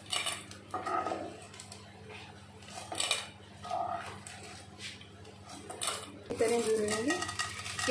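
Spatula knocking and scraping in a nonstick frying pan while pieces of edible gum (gond) are tipped into warm ghee and stirred: a handful of separate knocks and scrapes, a second or more apart.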